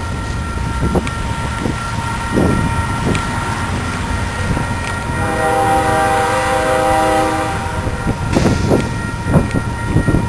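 Air horn of an approaching Union Pacific freight locomotive, one long blast of about two seconds about halfway through, over a steady low rumble.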